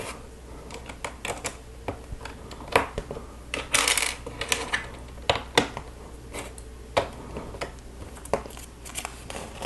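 Plastic Lego bricks clicking and snapping together and pieces knocking against each other in irregular small clicks and taps, with a brief denser rattle of plastic about four seconds in.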